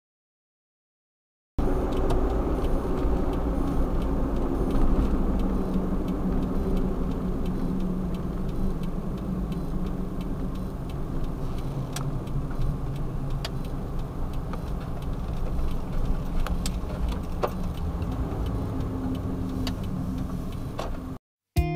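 Kei van driving, heard from inside the cabin: a steady engine and road rumble with a few faint, irregular clicks. It starts after about a second and a half of silence and cuts off suddenly just before the end.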